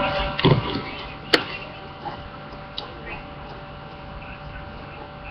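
Steady electrical hum, with a soft knock about half a second in and a sharp click a little after one second.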